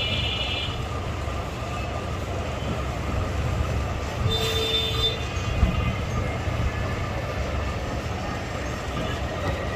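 Steady low rumble of passing vehicle traffic, with a brief high-pitched squeal about four and a half seconds in.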